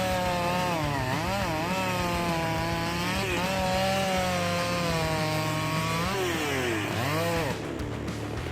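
Chainsaw running and cutting wood, its engine pitch repeatedly dipping and rising as it works. The sound drops away about seven and a half seconds in.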